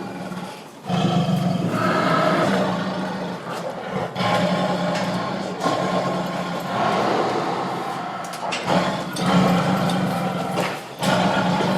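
Tiger growling and roaring: several deep, rough calls a few seconds long each, one after another with short breaks.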